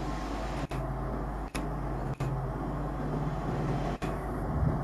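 EMD-built WDP4 diesel-electric locomotive's 16-cylinder two-stroke engine droning steadily as it hauls a passenger train, growing slightly louder as it approaches. The sound drops out briefly four times.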